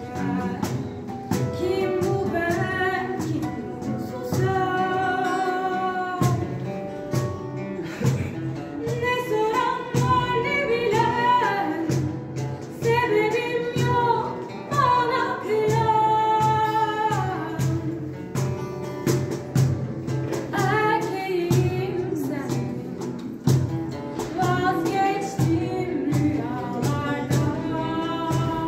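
Live performance of a song by a small band: a female voice singing a melody over electronic keyboard and guitar accompaniment.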